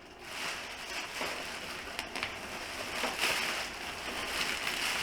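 Rustling and crinkling of packaging being handled in a parts box, with a couple of light clicks about two seconds in.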